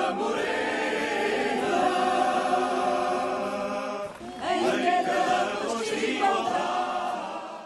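A group of people singing together, unaccompanied, in long held notes, with a short break about four seconds in.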